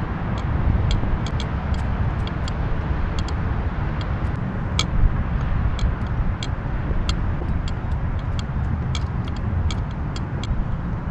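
Steady low wind rumble buffeting the microphone, with scattered sharp small clicks a few times a second.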